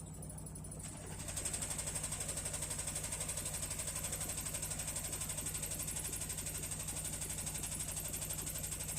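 Hisense HW-DG80C washing machine going into its spin. About a second in, it gets louder and settles into a fast, even knocking of several beats a second over a high whine: the tub rattling against the outer tub at the start of spin, a fault that two replacement units also had.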